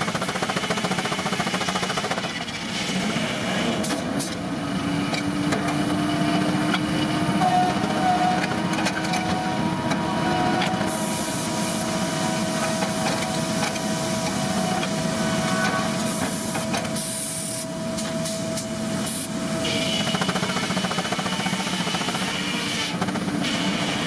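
Circular sawmill running, driven by a steam traction engine: a steady mechanical hum with held tones and hiss as the carriage carries a large log past the saw, with brighter hissing stretches about halfway and again later.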